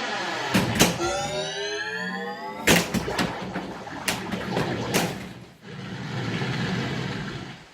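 White Water pinball machine playing its electronic sound effects: rising pitched sweeps and several sharp cracks, then a stretch of hissing noise that fades out near the end. The sound is faulty, more like an early-'80s pinball than this machine's proper audio.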